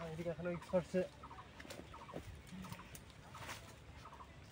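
Domestic fowl calling: a quick run of short clucks in the first second, then faint, repeated short calls.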